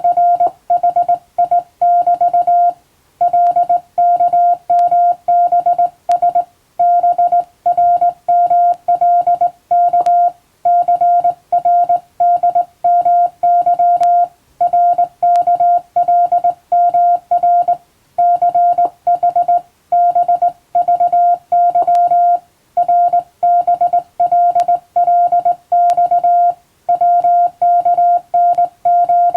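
Morse code (CW) practice signal: a single pure beep tone keyed on and off in dots and dashes at an even rhythm, with short gaps between letters and slightly longer pauses between word groups.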